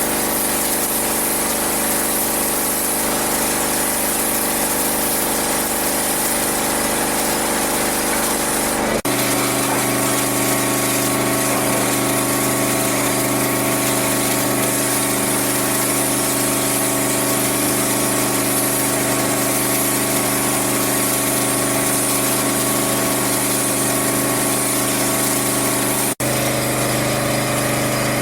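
Gas-powered pressure washer running steadily, its engine note under the high hiss of the water jet blasting dirt and loose paint off stucco and siding walls. The sound breaks off abruptly twice, about nine seconds in and near the end.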